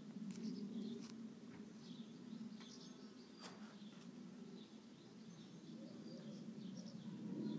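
Faint outdoor ambience: small birds chirping here and there over a steady low hum, with a single sharp click about three and a half seconds in.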